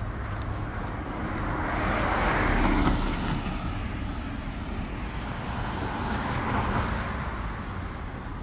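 Traffic noise from cars passing on the street beside the sidewalk. The rush of two passing cars swells and fades, the louder one about two and a half seconds in and a second about six and a half seconds in.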